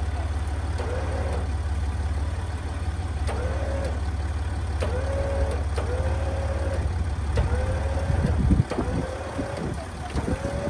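Warn Zeon 12-S Platinum electric winch hauling under heavy load on a doubled line, pulling a rolled Land Rover Discovery 4 back up off its side. It makes a steady low drone that breaks up about eight and a half seconds in, with a short mid-pitched tone repeating every second or so over it.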